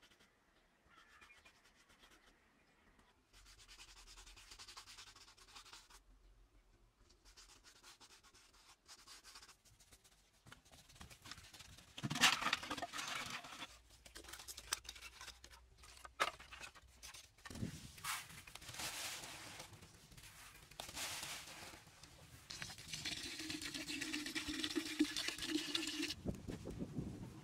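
Close hand-work sounds: scraping and rubbing, then knocks of dry firewood sticks laid into a clay stove. Near the end comes a steady stream of water pouring into a clay pot of rice.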